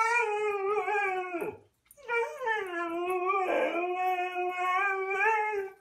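Husky howling: two long, drawn-out howls. The first ends with a falling slide about a second and a half in. The second starts about two seconds in and runs to near the end, going briefly rough in the middle.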